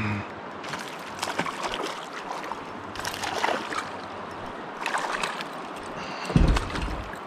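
Water splashing in three short bursts about two seconds apart, then a heavy low thump near the end, as a small hooked smallmouth bass is brought to the kayak.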